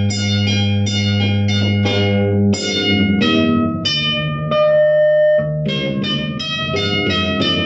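Yamaha DX7 FM synthesizer played with both hands in a plucked, guitar-like tone. Quick struck notes run over a held low bass note, then the chords change about two and a half seconds in.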